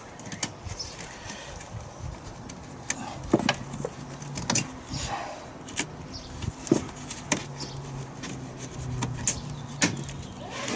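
Scattered clicks and knocks of plastic engine-bay parts and connectors being wiggled and pulled loose by hand, over a faint steady low hum.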